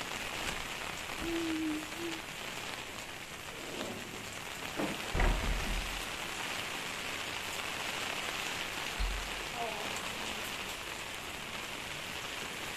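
Steady rain falling on wet concrete paving and plants, an even hiss of drops. There are a couple of dull low thumps about five and nine seconds in.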